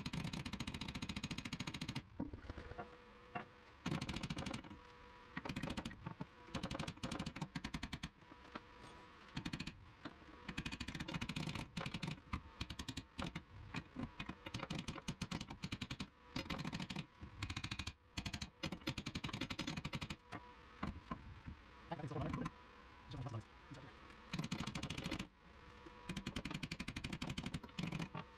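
Bursts of rapid metal-on-metal hammering, a few seconds each with short pauses, from a tool working at the welded-on tab that stops a seized lower shock bolt on the front suspension from turning.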